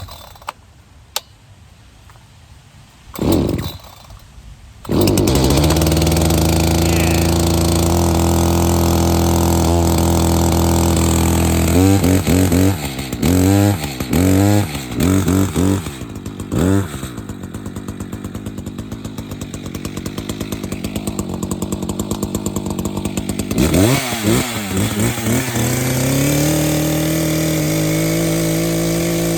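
Echo CS-590 Timberwolf 59.8cc two-stroke chainsaw being pull-started: a couple of short bursts, then the engine catches about five seconds in and runs steadily. It is revved in several quick blips of the throttle, drops back to a lower idle, and is revved again before running steadily near the end.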